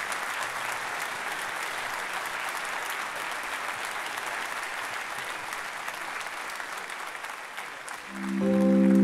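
Audience applauding steadily, dying away near the end. In the last second a few held musical notes begin.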